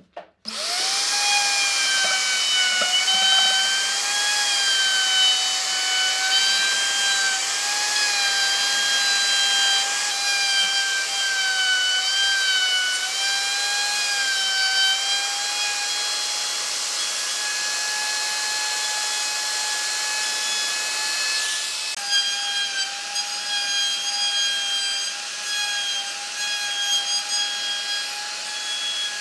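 Electric plunge router running at full speed while its bit cuts along the edge of a wooden board: a loud, steady high whine whose pitch wavers slightly as it cuts, coming in about half a second in.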